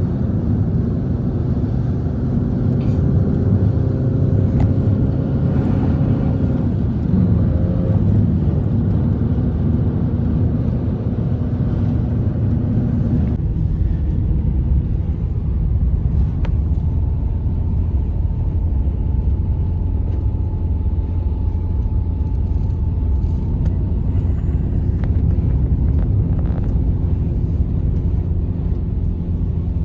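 Strong blizzard wind blowing in a steady low rumble, with faint whistling tones held over it.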